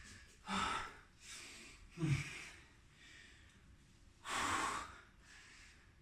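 A man's heavy breathing, out of breath from exercise: a few separate breaths and gasps, one with a short grunt about two seconds in, and the loudest exhale a little after four seconds.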